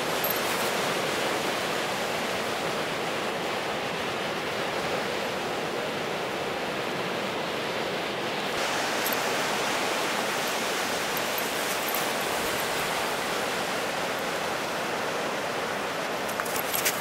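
Steady rushing wash of ocean surf, an even noise with no breaks.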